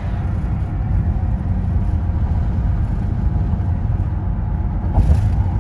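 Car driving on a highway, heard from inside the cabin: a steady low rumble of road and engine noise, with a brief knock about five seconds in.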